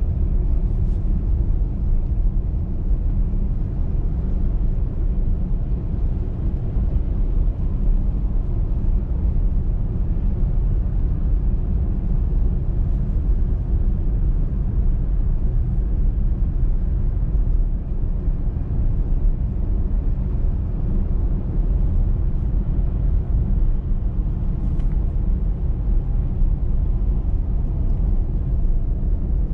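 Steady low rumble of a car driving at motorway speed: tyre and road noise with the engine underneath, even throughout.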